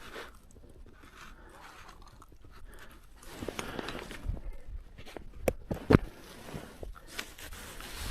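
Irregular crunching and scraping, with two sharp knocks about five and a half and six seconds in.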